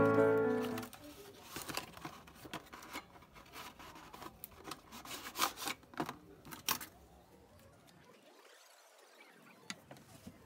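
A slim cardboard box is handled and opened and a jointed wooden artist's mannequin is slid out of it: scattered clicks, taps and short scrapes of cardboard and wood, busiest in the middle. Background music fades out in the first second.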